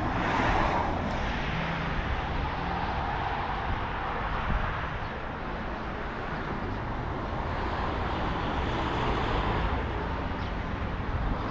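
Road traffic: cars passing on a main road, a steady rush of tyre and engine noise that swells as vehicles go by, about a second in and again later.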